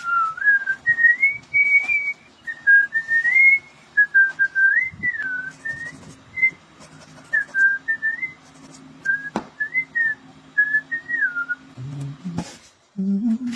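A person whistling a tune in short, wavering phrases, with a faint low hum underneath and one sharp click about two thirds of the way through.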